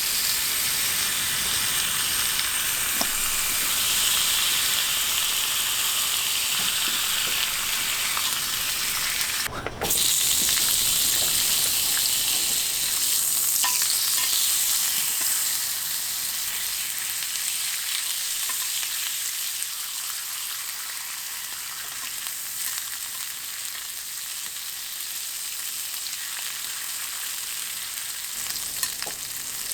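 Food sizzling and frying in a hot pan on a camp stove, a steady hiss with a brief break about ten seconds in and a little quieter in the second half.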